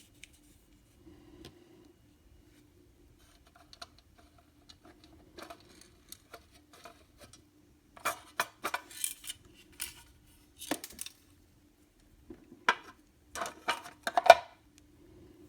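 Scattered light clicks, taps and scrapes from handling the small plastic and metal parts of an N scale Kato F3 locomotive as its coupler is worked back into place. The sharpest clicks come in the second half, over a faint steady low hum.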